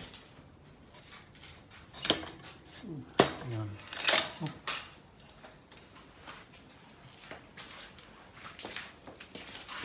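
Metal bicycle crank parts and tools clinking and scraping as they are handled during crank installation: a few sharp clicks about two and three seconds in, a louder metallic scrape soon after, then scattered light ticks.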